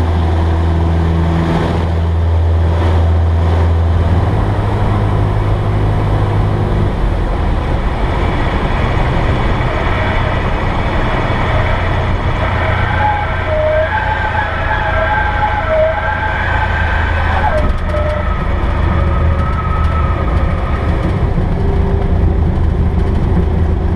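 Cessna 172S's four-cylinder Lycoming IO-360 engine and propeller running, heard inside the cabin; its steady note drops at about 4 seconds and again at about 7 seconds as power changes. A wavering high whine rises and falls over it for several seconds in the middle.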